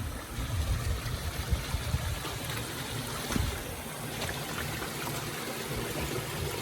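A stream running, a steady rushing of water, with low wind rumble on the microphone that eases about halfway through.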